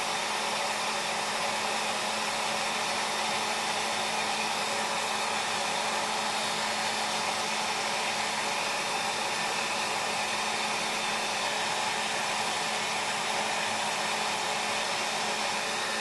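Electric heat gun running steadily, its fan pushing a rush of hot air with a faint low hum beneath, shrinking heat-shrink tubing over a relay's soldered leads.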